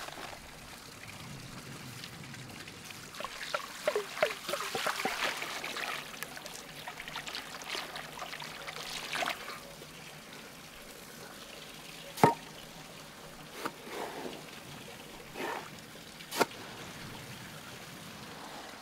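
Salty water sloshing and splashing as salt is stirred into it with a perforated metal skimmer in a large aluminium pot, mixing the salt for a salt crust. A few sharp knocks of the skimmer against the pot come in the second half, the loudest about twelve seconds in, with a brief ring.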